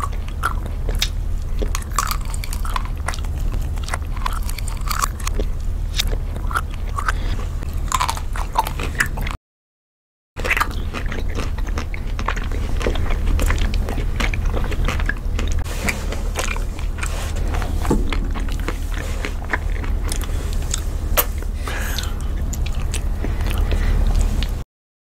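Close-miked eating sounds of two people biting and chewing chocolate-coated ice cream bars, played backwards: dense crackly bites and chewing over a steady low hum. The sound cuts out to silence for about a second nine seconds in, and again just before the end.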